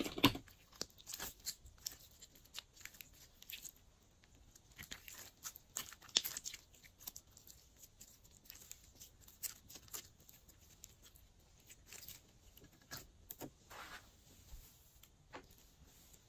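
Hands working glossy slime: irregular sticky clicks, crackles and small pops as it is stretched, folded and pressed, a little louder in the first second.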